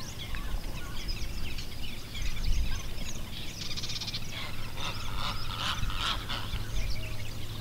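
Outdoor birdsong with many small birds chirping, and a louder honking fowl call, goose- or duck-like, repeated several times around the middle.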